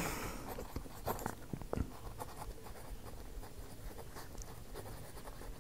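Pen writing on paper: faint scratching strokes, with a few sharper ticks of the pen between about one and two seconds in.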